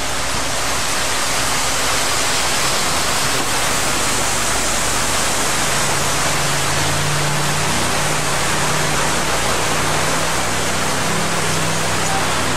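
Steady rush of a waterfall cascading down rockwork, with the low hum of the safari truck's engine underneath.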